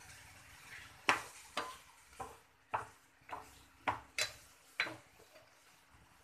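A metal spoon stirring tuber slices frying in oil in a small wok, striking and scraping the pan in about eight sharp clinks at an uneven pace, over a faint sizzle of frying oil.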